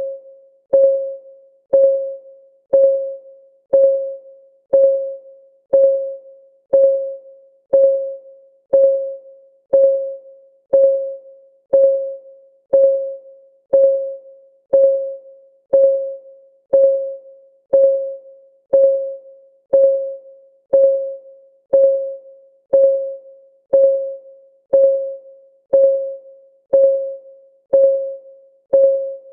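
Countdown timer's synthesized clock ticking: a short pitched tick about once a second that rings briefly and fades, with a quieter tick between, keeping a steady beat.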